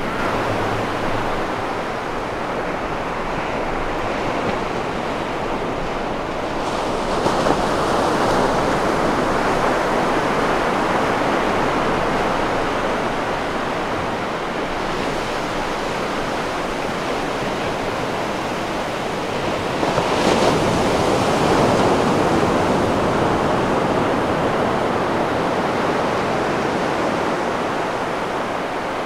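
Ocean surf: waves breaking in a steady wash of noise, swelling louder about 7 seconds in and again about 20 seconds in.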